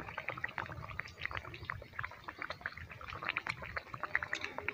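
Malpua batter frying in hot oil in a steel kadhai, the oil crackling and spitting irregularly, with a low rumble underneath.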